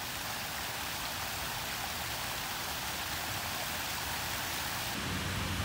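Water from a stepped cascade fountain pouring over its ledges into the basin: a steady splashing rush. A lower rumble joins in near the end.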